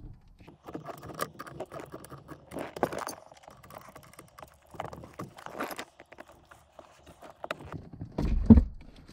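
Irregular metallic clicks and knocks of a 10 mm socket wrench and hands working the positive cable off a car battery post. Near the end comes a louder low thump as the battery is gripped and shifted in its tray.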